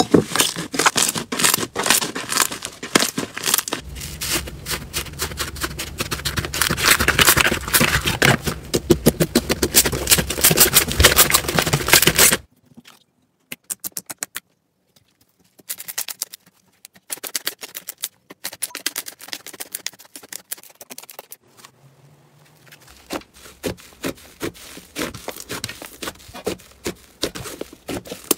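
Hands squeezing and pressing slime, some of it mixed with beads: a dense run of crackling, popping clicks for about twelve seconds, then after a sudden cut sparser sticky pops and snaps as a slime is stretched, and about two-thirds of the way in more crackling as another slime is pressed.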